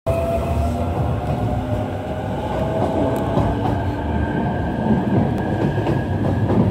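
Inside an electric commuter train pulling out of the station: a steady low rumble of wheels and running gear, with a few faint steady tones above it.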